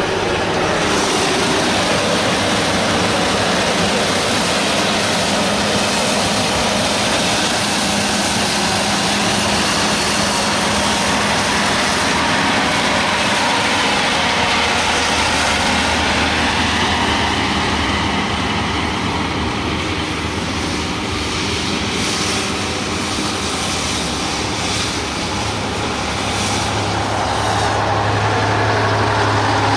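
A heavy diesel engine running steadily: a low hum under a broad rushing noise, with the low hum growing stronger in the last few seconds.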